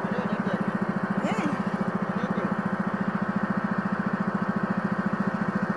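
Small fishing boat's engine running steadily under way, with a fast, even putter.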